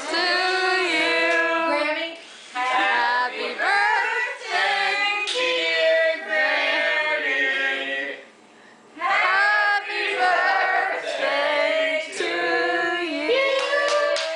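A high voice singing unaccompanied, in held, gliding phrases, with short breaths between them and a longer pause about eight seconds in.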